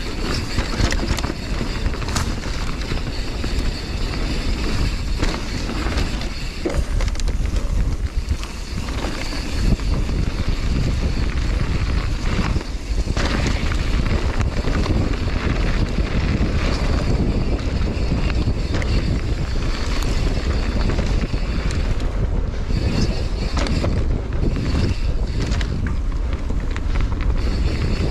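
Wind rushing over the microphone of a mountain bike descending a dirt trail, with tyre noise on the dirt and short knocks and rattles from the bike over bumps.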